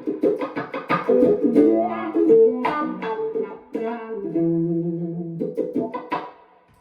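Electric guitar (Godin Artisan TC, split humbucker) played through a Dunlop Cry Baby wah pedal and a Mesa Nomad 100 amp: short choppy picked notes, then held notes whose tone shifts as the wah sweeps. The playing stops a little before the end and the last note fades out.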